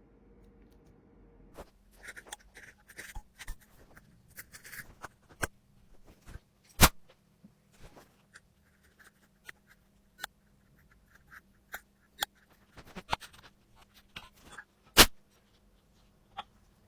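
Small handling sounds of a phone being worked on: short scratchy scrapes and sharp clicks of a small tool against the phone. Two clicks, about 7 s and 15 s in, are louder than the rest.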